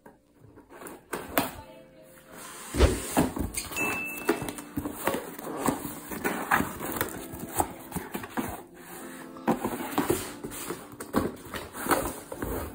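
Cardboard shipping carton being slit along its packing tape and torn open by hand: a run of sharp, irregular crackles, tears and rustles, loudest about three seconds in, over soft background music.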